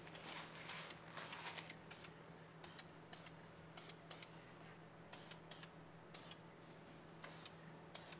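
Faint hiss of an aerosol can of primer spraying, two short sprays in the first couple of seconds, with scattered faint clicks.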